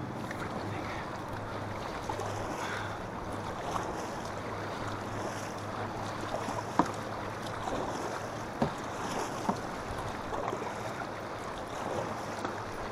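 River water splashing and lapping against a kayak's hull as it moves with the current, with wind on the microphone, a faint low hum and a few sharp knocks in the second half.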